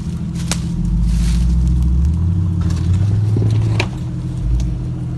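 Jeep engine running under load. It rises about a second in, climbs again around three seconds and drops back just before four seconds, with a few sharp clicks and knocks.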